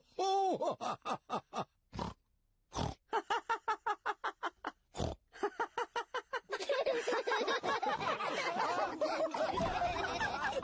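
Cartoon pig characters snorting and laughing in quick, rhythmic snorts with two short pauses. From about six and a half seconds in, several voices laugh together and overlap.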